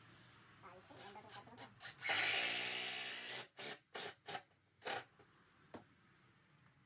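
A DeWalt cordless drill runs for about a second and a half, driving into the wall frame's bottom plate at the plywood floor, with a grinding sound. Several sharp knocks follow.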